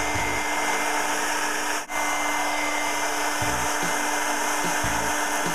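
A weak old hair blow dryer, its housing split and melted, running steadily with a constant motor hum and whine over the rush of air, blowing into the forge's air pipe. The sound cuts out for an instant about two seconds in.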